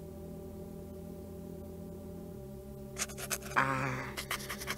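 Cartoon soundtrack: a low, held musical drone. From about three seconds in it is joined by quick scratchy clicks and a short warbling rustle, a sound effect of rummaging through papers on a desk.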